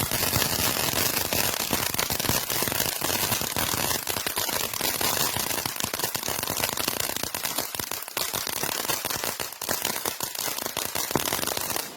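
Consumer fireworks giving off a dense, rapid crackle of small pops over a hiss, which stops abruptly at the end.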